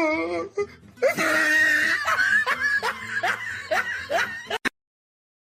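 A person laughing in a run of short breathy gasps, about three a second, for three and a half seconds; the sound then cuts off abruptly to silence.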